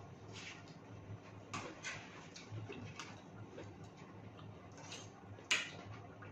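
Close-up eating sounds: chewing, lip smacks and scattered soft clicks as fried chicken and noodles are eaten. One sharper, louder click comes about five and a half seconds in.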